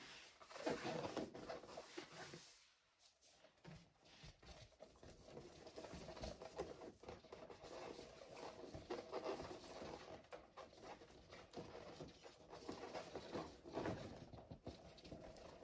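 Faint, irregular rubbing and rustling of inflated latex balloons being handled and pressed together into a garland cluster.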